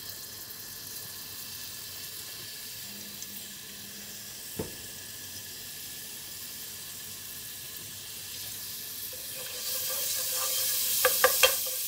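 Ghee and cooking oil in a frying pan on the stove, at first a faint steady hiss as the pan heats, then breaking into a louder sizzle about nine and a half seconds in as the fat melts and gets hot. A wooden spatula knocks once against the pan near the middle and several times near the end.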